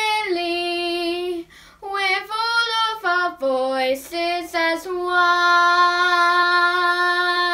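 A young girl singing unaccompanied, a run of short notes moving up and down, then a long held note over the last few seconds.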